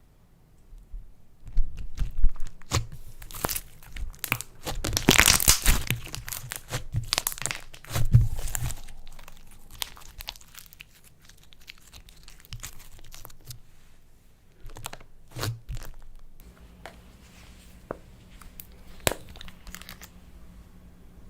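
Clay slime being squeezed and stretched by hand, making dense crackles and pops, busiest a few seconds in and thinning out toward the end.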